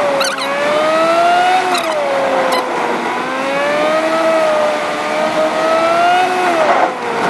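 Formula 1 racing engine sound effect: a high, continuous engine whine whose pitch climbs and falls back several times, like revving up through the gears, with a sharp drop near the end.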